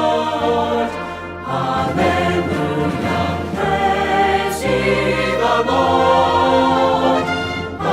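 Choir singing a worship song, long held chords that change every second or two.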